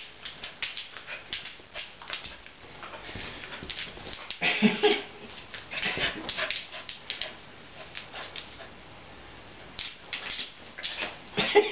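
Beagle puppy at rough play with a toy, making excited whimpering noises with a louder short cry about four and a half seconds in, amid many quick scuffing and clicking sounds.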